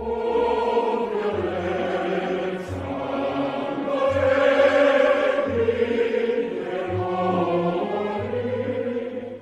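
Background soundtrack music: sustained choir-like voices over held chords, with a low bass note pulsing about once a second. It comes in loudly at the start.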